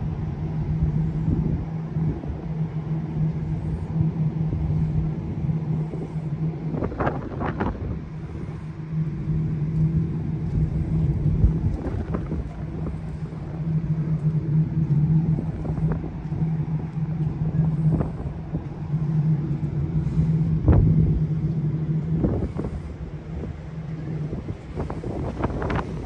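Steady low mechanical hum at one pitch over a low rumble, with wind buffeting the microphone now and then, in heavier gusts about a third of the way in and again near the end.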